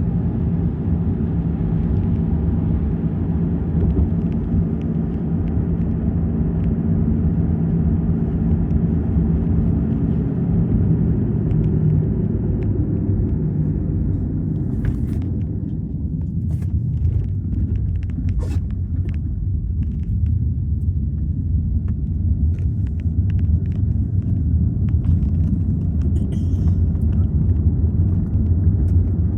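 Road and engine noise inside a moving car: a steady low rumble. About halfway through, the higher tyre hiss fades, and scattered short clicks and ticks follow over the continuing rumble.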